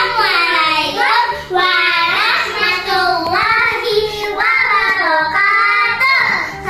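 A child's high-pitched singing voice over light background music, like a children's song or intro jingle.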